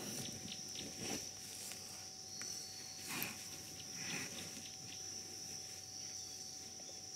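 A baby black rhino moving about in sawdust: irregular rustling and scuffing, strongest about one, three and four seconds in, over a steady high insect drone.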